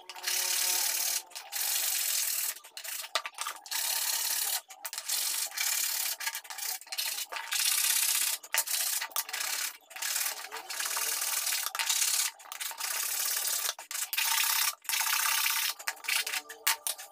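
A flat hand file rubbed back and forth over the edges of a small wooden phone-stand piece: a long run of rasping strokes, one or two a second, broken by short pauses.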